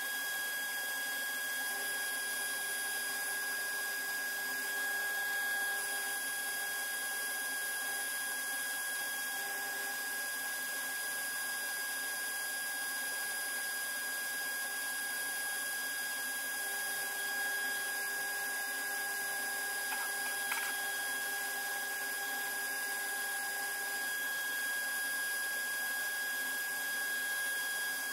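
Jet wood lathe running steadily, its motor giving a constant high whine over a hiss as it spins a wooden needlefish lure blank. One faint click about two-thirds of the way through.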